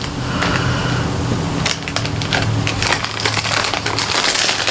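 Plastic Hershey's Kisses candy bags crinkling and rustling as they are handled and sorted through, a dense run of irregular crackles.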